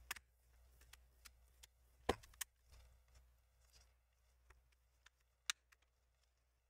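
A few faint, sharp plastic clicks as the laptop's screen bezel is pressed and clipped back onto the display lid, two close together about two seconds in and another about five and a half seconds in.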